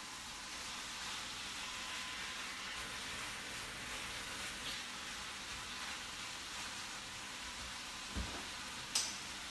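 Beef browning in a hot skillet, a steady sizzle. A short low thump comes about eight seconds in, then a sharp click just after.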